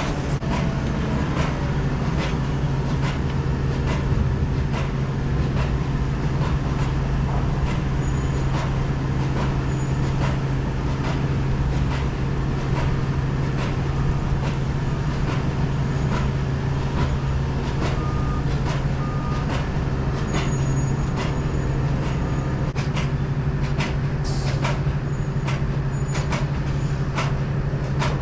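A truck driving on the road: a steady low engine drone with road noise and frequent small rattles and clicks.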